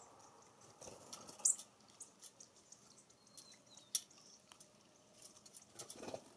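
American bushtits giving faint, scattered high, thin ticking call notes, each very short, the loudest about a second and a half in and again near four seconds.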